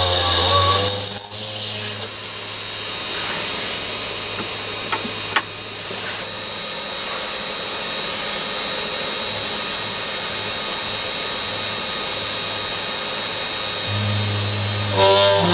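Machifit 500W ER11 spindle motor running as a cross-slide drill, its bit drilling across a metal tube held in the lathe chuck: a steady cutting whir with two sharp clicks about five seconds in. A wavering whine with a low hum comes in near the start and again near the end.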